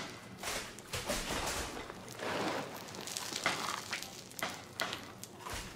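A person chewing a mouthful of dry dog kibble, with irregular crunches.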